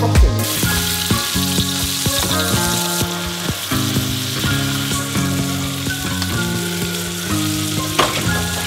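Beef burger patties frying in oil in a pan, a steady sizzle that starts about half a second in, with a single knock near the end.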